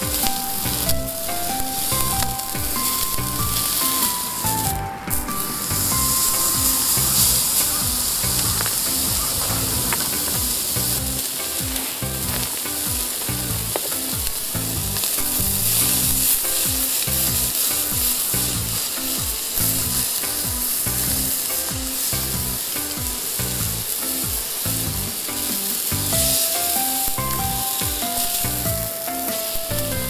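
Beef steak sizzling steadily on a hot iron griddle plate set over campfire embers.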